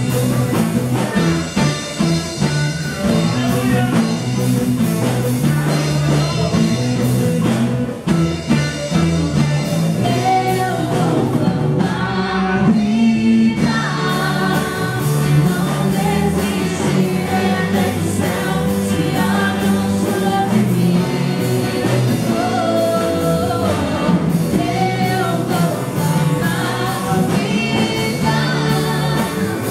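Christian worship song sung over a full band with drums and bass, a contemporary gospel-rock arrangement; the band thins out briefly near the middle, then the full mix returns.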